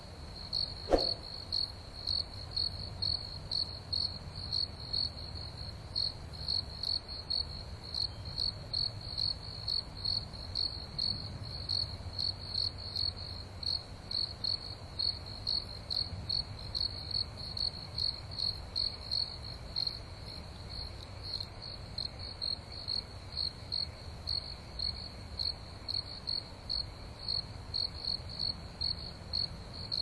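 A cricket chirping steadily at about two high, even chirps a second, over a low steady rumble. A single sharp click sounds about a second in.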